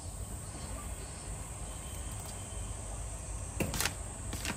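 Steady high chirring of insects over a low outdoor background, with two short sharp clicks near the end.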